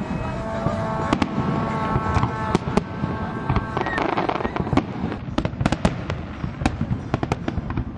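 Fireworks display going off in a dense, continuous string of sharp bangs and crackling reports, several a second.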